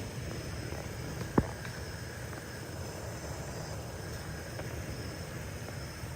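Steady low rumble and hiss of outdoor background noise, with one sharp click about a second and a half in.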